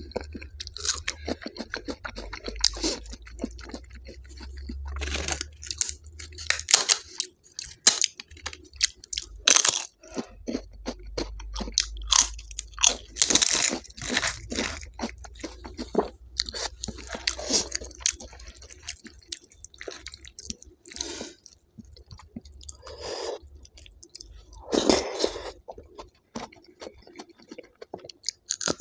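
Close-miked eating: chewing with many sharp, irregular crunches of crisp fried food such as papad or fried potato, mixed with softer wet mouth sounds.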